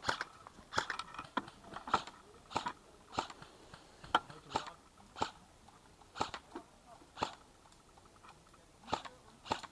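Footsteps crunching on dry forest floor at a walking pace, about one to two steps a second with a short pause near the end.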